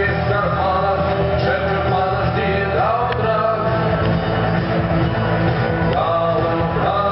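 Rock music: a band playing a song, loud and steady throughout.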